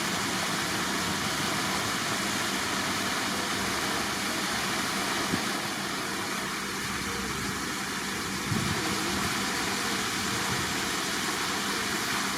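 Steady rushing noise of moving water in a park pool, with a single short knock about five seconds in.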